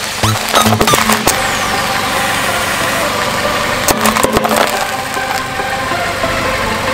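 A hard-candy lollipop crunching and cracking under a slowly rolling car tyre, in two bursts, about half a second in and again about four seconds in, over a car engine idling steadily.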